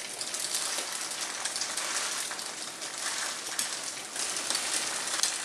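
Grated potato cakes frying in a pan: a steady sizzle with fine crackling.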